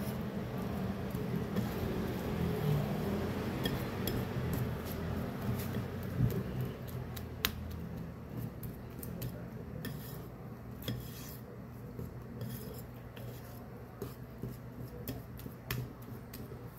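Wire balloon whisk beating thick banana cake batter in a ceramic bowl: a steady wet churning, with the whisk's wires ticking and clinking against the side of the bowl. The clinks grow more frequent in the second half, with one sharper click about seven seconds in.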